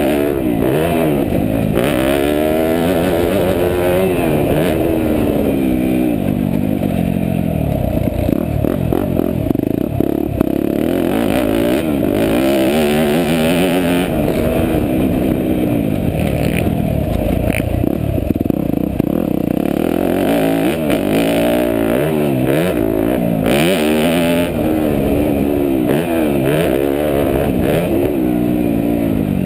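Yamaha YZ250F four-stroke single-cylinder motocross engine, heard from a helmet camera while the bike is ridden hard round a dirt track. The revs rise and fall again and again as the rider opens the throttle, shifts and backs off.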